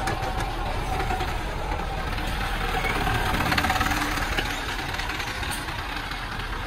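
Diesel engine of a Hoa Mai light dump truck running as the truck pulls away, a little louder about three to four seconds in.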